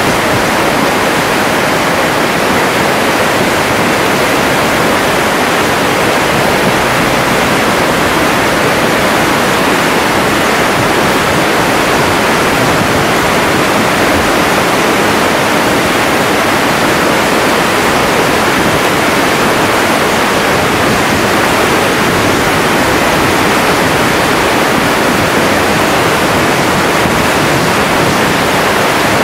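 Flash-flood water rushing across a wash choked with woody debris: a loud, steady rush that does not let up.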